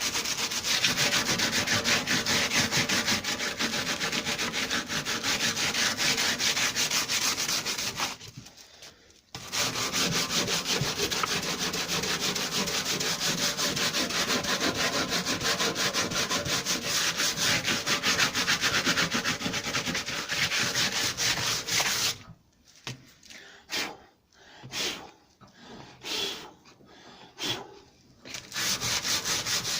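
Coarse 80-grit sandpaper rubbing down hardened metal filler on a lawnmower deck in quick, even back-and-forth strokes. The sanding stops briefly about eight seconds in, then near the end comes in short stop-start spells before running steadily again.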